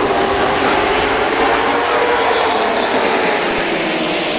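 A pack of stock cars' V8 engines running at racing speed, a loud steady drone from many engines at once, its pitch rising slightly and then easing off as the field goes by.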